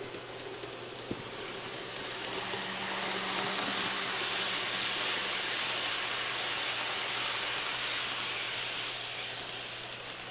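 Kato N scale Santa Fe El Capitan passenger train running on the layout track: a fine rolling hiss of small metal wheels on rail that grows louder as the train passes close by, from about two seconds in, and fades again near the end. A steady low hum lies underneath.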